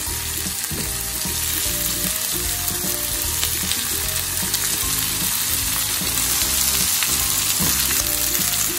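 Pork trotters, red onions and garlic frying in hot oil in a pan: a steady sizzling hiss as the pork goes in to brown.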